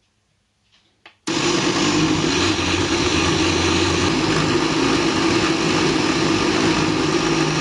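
SilverCrest countertop blender switched on with a click of its dial about a second in, then running steadily and loudly as it purées soaked buckwheat, seeds and water into a batter.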